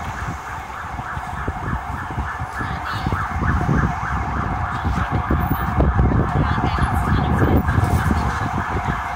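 An emergency-vehicle siren sounds continuously with a fast repeating pulse, over the low rumble of dense city traffic. The traffic rumble grows louder a few seconds in.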